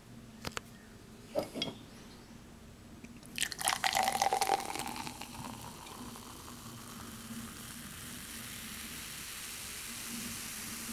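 Carbonated homemade apple cider poured from a swing-top bottle into a glass. After a few light clicks, the pour starts with a splashy rush about three and a half seconds in, then settles into a steady fizzing hiss as a thick head of foam rises.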